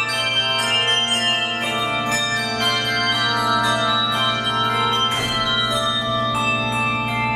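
Handbell choir playing: many bells struck in rhythm, several tones ringing on together at once.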